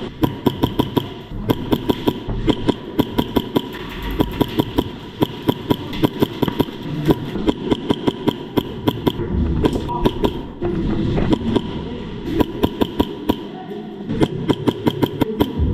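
Airsoft gunfire: strings of sharp shots, several a second, broken by short pauses.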